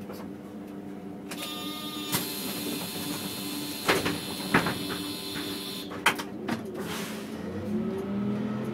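City bus standing with its engine running while its compressed-air system hisses for several seconds, with a few sharp clunks. Near the end the engine note rises in pitch.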